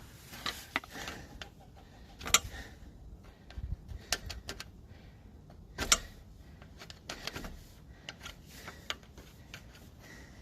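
Hand tools clicking and tapping on metal in an irregular run of light ticks, with two sharper knocks about two and six seconds in, while picking old rubber and debris out of a car's lower ball joint.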